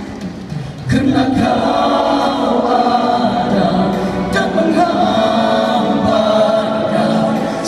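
Male nasyid vocal group singing a cappella in close harmony through handheld microphones and a PA, holding sustained chords; the singing swells to full strength about a second in.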